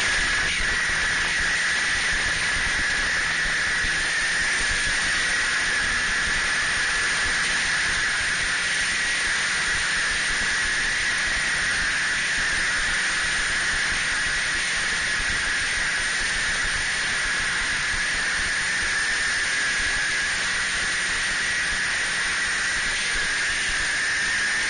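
Snowmobile running at a steady cruising speed: a constant engine drone with a steady high whine, under heavy wind rush on the microphone.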